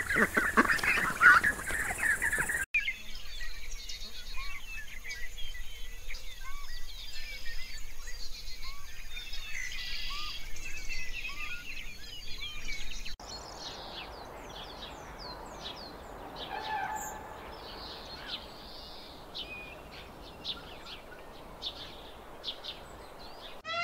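Bird calls across three cuts: ducks calling loudly for the first couple of seconds, then many small birds chirping busily, then from about halfway a quieter stretch of short, high chirps.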